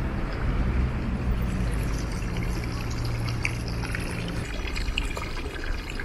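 Street fountain running: a jet of water from a spout splashing steadily into a stone trough. A low steady hum sits under it and stops about two-thirds of the way through.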